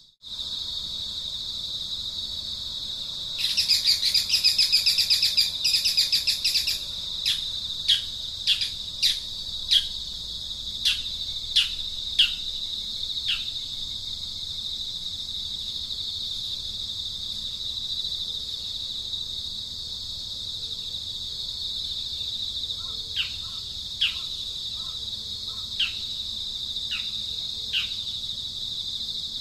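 Outdoor insect drone, a steady high hum of crickets or cicadas, with birds calling over it. A loud buzzing trill comes about three seconds in and lasts a few seconds, then a string of short downward-sliding chirps follows, roughly one to two a second, and a few more chirps come near the end.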